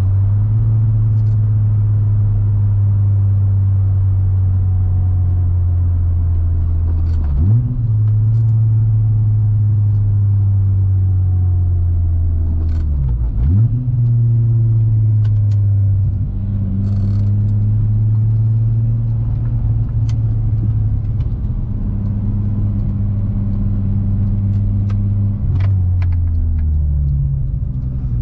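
Modified 2.8-litre 12-valve AAA VR6 in a Mk2 Golf GTI running under way, with hot cams and a 63 mm exhaust, heard from inside the car. The engine note holds steady with two quick sharp rises in pitch, about a quarter and halfway through, at gear changes, then drops lower near the end.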